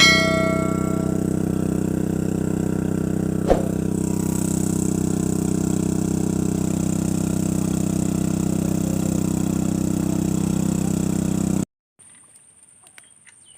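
Engine-driven water pump running steadily while draining the pond, with one sharp click a few seconds in. Near the end the engine sound cuts off suddenly, leaving a quiet background with a faint, steady high-pitched tone.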